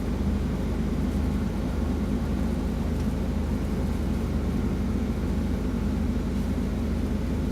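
Steady low rumble of an idling engine, with an even hum and no changes in pitch or level.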